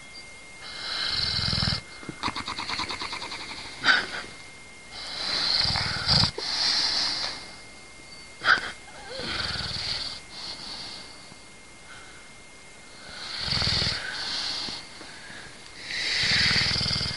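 English bulldog snoring in long, noisy breaths every few seconds, one with a fluttering rattle, and a few short, sharp sounds among them.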